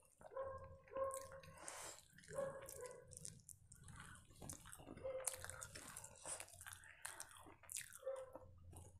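Close-up eating sounds: chewing, lip smacking and wet squishing as chicken in green masala gravy and dosa are eaten with the fingers. Short whine-like tones recur every few seconds.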